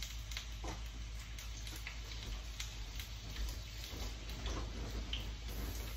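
Jalapeño and serrano chiles frying in oil in a pan: the oil sizzles with irregular small pops and crackles.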